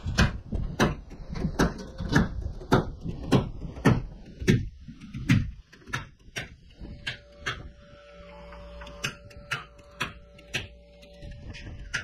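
Framing nail gun driving nails into OSB roof sheathing: sharp shots about two a second for the first five seconds, then fewer and fainter ones. A steady hum joins in the second half.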